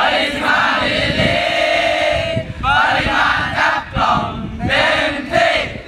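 A large group of young people shouting a cheer in unison: a long drawn-out call, then two shorter shouted phrases.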